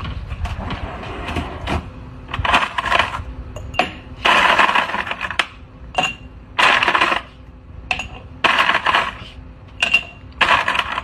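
A dog licking and biting at ice cubes in a plastic freezer basket, the ice clattering and crunching in about five bursts with sharp clinks between them.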